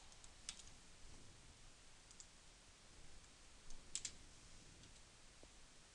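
Near-silent room tone with a few faint clicks from operating the computer: one about half a second in, one around two seconds, and a small cluster near four seconds.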